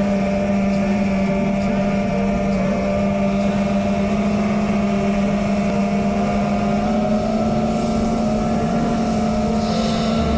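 FPV quadcopter's four brushless motors and propellers (Rcinpower GTS-V2 1860KV on an iFlight Titan XL5 frame) running in flight with a steady droning hum that holds one pitch, mixed with wind rushing over the onboard microphone.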